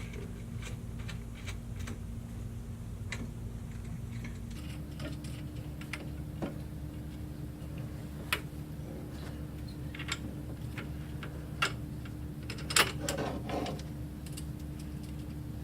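Scattered clicks and taps of small metal hardware and a hand tool being handled while screws are fitted into a pull-up bar's door stabilizer, over a steady low hum. The loudest clatter comes about 13 seconds in.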